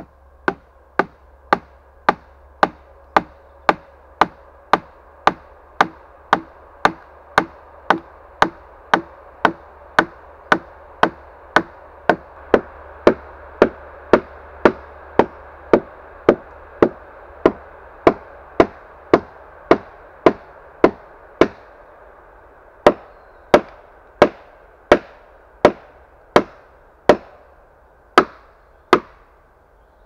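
Axe blows on wood in a steady rhythm of about two strikes a second, with a short break about two-thirds of the way through.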